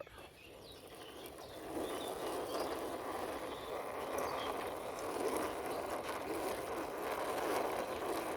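Wheels of a toy Spider-Man car rolling along a surface as it is pushed by hand, a steady rolling noise that grows louder over the first second or two.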